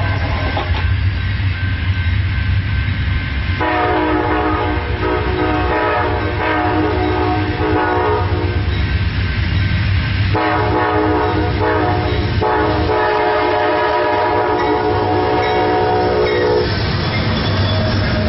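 Amtrak P42 diesel locomotive's multi-chime air horn sounding three blasts, long, short, then long, over the low rumble of the approaching train; the pattern is typical of a grade-crossing warning. Near the end the horn stops and the rush of the locomotives and wheels passing close takes over.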